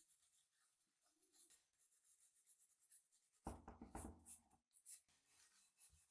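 Quick, quiet scratchy strokes of hand scrubbing or abrading on the rusty metal of a pipe wrench, several a second. Partway through comes a brief, fuller knock of the tool being handled.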